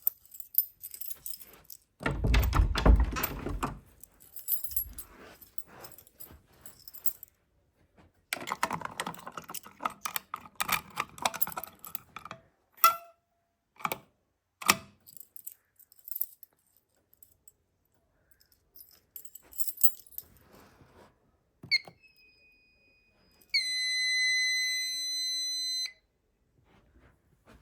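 Clicks and rattling handling noises with a heavy thump about two seconds in. Near the end comes a short electronic beep, then a steady electronic tone held for about two and a half seconds.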